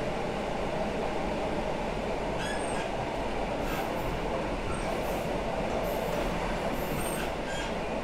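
EN57 electric multiple unit heard from inside the passenger car while running: a steady rumble of wheels on the track, with several short, high squeaks.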